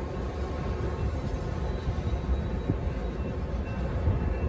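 Double-stack container freight train rolling away past the crossing: a steady low rumble of wheels on rail.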